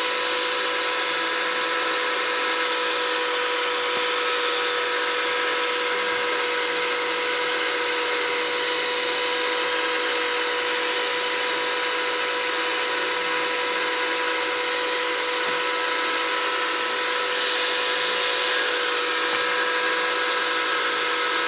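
Car pressure-washer electric motor driving a homemade airless sprayer, running steadily with a constant whine over a hiss.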